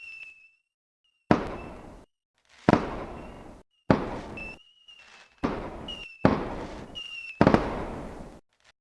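Fireworks going off: about six loud bangs, each dying away quickly, with short shrill whistles in between.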